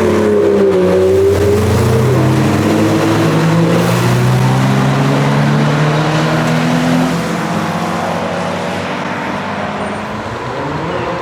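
A performance car's engine under acceleration, its pitch dropping sharply about two seconds in as at a gearshift, then climbing again before it grows quieter in the second half.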